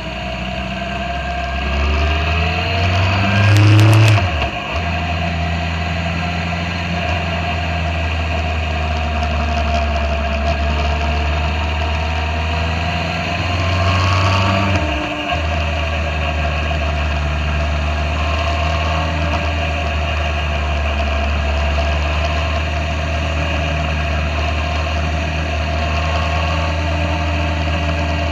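Motorcycle engine running under way. It rises in pitch and drops off at a gear change about four seconds in, does the same again about fifteen seconds in, and then runs at an even speed.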